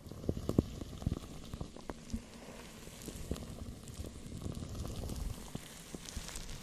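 Close-miked ASMR trigger sounds: dense, irregular crackling and soft popping, with a few sharper clicks in the first second or so.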